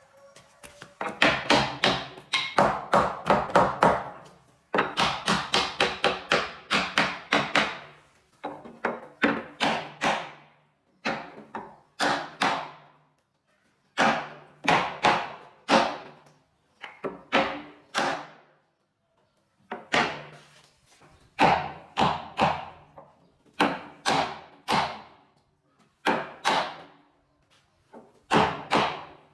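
Hammer blows on wood, struck in quick runs of about four a second with short pauses between runs. Each blow has a brief ringing tone, as when nails are being driven while a wooden bed frame is assembled.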